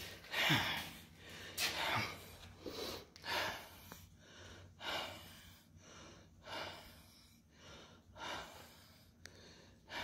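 A person breathing heavily, audible breaths in and out about once a second, louder in the first couple of seconds and fainter after.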